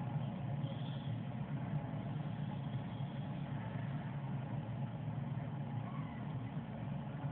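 Steady low hum of background machinery or traffic, even throughout.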